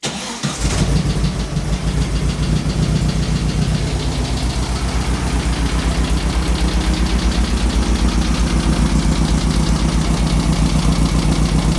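Air-cooled Volkswagen 1600cc flat-four engine starting up and catching within the first second, then idling steadily with an even pulse.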